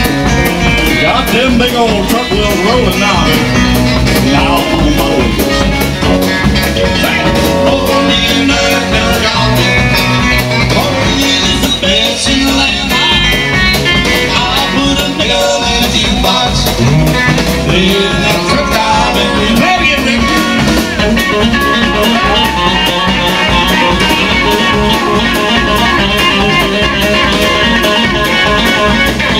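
Live band playing a country-rock song: Stratocaster-style electric guitar, electric bass and drum kit keeping a steady beat, loud throughout.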